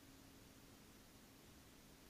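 Near silence: a faint steady hiss with a low hum underneath, between radio calls.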